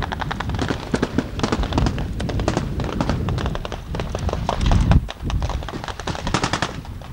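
Camcorder carried at a run: rapid, irregular knocks and handling rustle with footfalls through grass, and one heavier thump about five seconds in.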